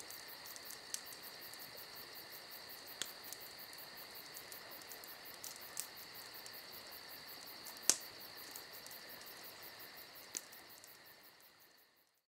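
Insects trilling steadily in a high, even chorus with fast, regular ticking above it, broken by a few sharp clicks, the strongest about two-thirds of the way through. The sound fades out near the end.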